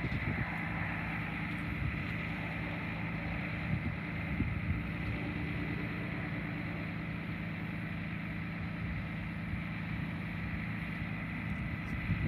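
Steady low engine hum from the diesel locomotive of the departing Metra train, far down the line, with a faint high whine above it.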